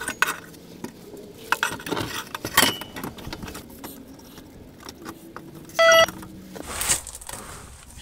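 Metal clinking and knocking as a repaired exhaust section is handled and hooked into its rubber hangers, with scattered sharp knocks and one short pitched ring about six seconds in.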